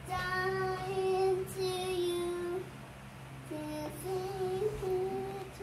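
A young girl singing a tune in long, drawn-out notes with no clear words, in two phrases with a short pause between, over a steady low hum.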